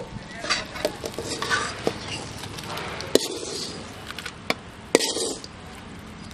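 A steel spoon clinking and scraping against a steel pan as fried shallots, tomatoes and chillies are scooped into a granite grinding stone, with scattered sharp clinks.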